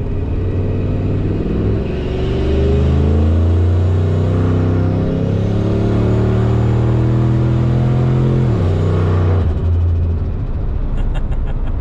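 Single-turbo 2003 Ford F-150's 5.4-litre Triton V8 under a full-throttle pull at about 12 psi of boost, heard from inside the cab, loud and strengthening about two seconds in as it accelerates hard. The engine note drops sharply about eight and a half seconds in and eases soon after.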